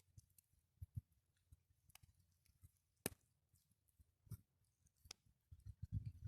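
Quiet, scattered sharp clicks and light taps, with a short run of soft low thumps near the end.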